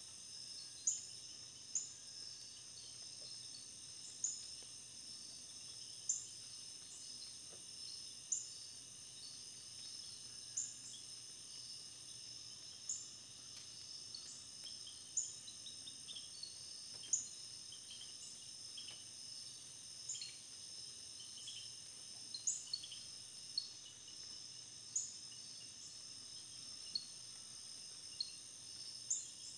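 Faint, steady high-pitched insect trilling, crickets or similar, with a short high chirp repeated about every two seconds.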